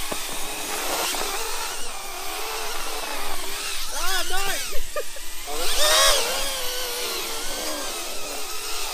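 Several tiny ducted micro quadcopters buzzing with a high-pitched motor whine, their pitch rising and falling as the motors rev while they shove each other across the mat.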